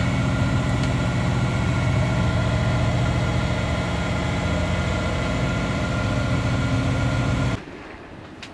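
Sailboat's engine running steadily under motor, heard from inside the cabin; it cuts off abruptly near the end.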